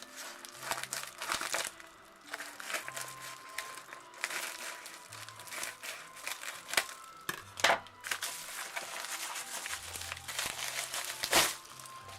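Packaging being unwrapped by hand: an irregular run of crinkling and rustling, with a few sharper, louder crackles later on. Soft background music with a steady bass line plays under it.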